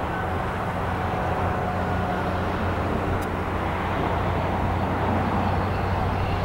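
Distant jet engines of a landed JetBlue Airbus A320, IAE V2500 turbofans, running as the airliner rolls out along the runway: a steady rumble with a low hum and a faint whine.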